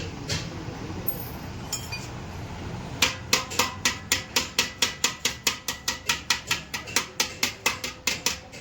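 Hammer striking metal in a fast, even run of blows, about five a second, starting about three seconds in. Each blow rings briefly.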